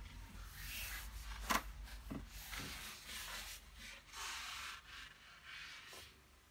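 Paper tissue rustling and rubbing as excess paint is mopped off a wet watercolour painting, with a sharp click about a second and a half in.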